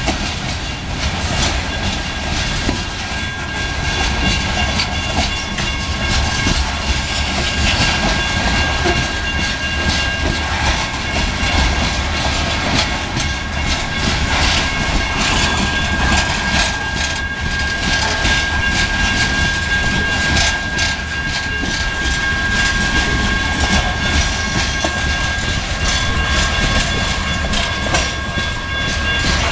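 Loaded coal hopper cars rolling past, steel wheels clicking and clattering over the rail joints in an irregular run, over a steady rumble. A thin, steady high-pitched tone runs underneath.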